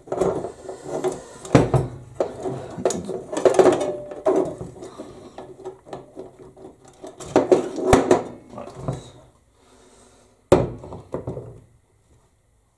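Metal parts of a dismantled bench grinder being handled on a workbench: the motor housing with its stator and the sheet-metal cover clatter and scrape, with several sharp knocks.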